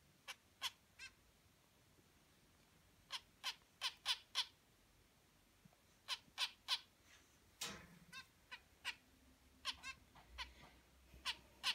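Zebra finches calling: short, sharp chirps, some single and some in quick bunches of two to five, with pauses between.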